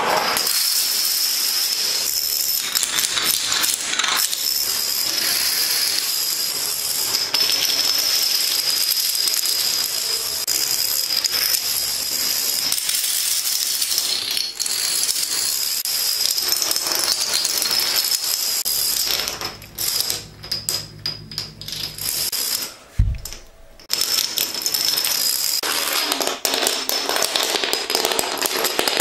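Plastic toy dominoes toppling in long chains: a fast, continuous clatter of small clicks. About two-thirds through the clatter thins out for a few seconds and a single low thump stands out, then the toppling clatter resumes.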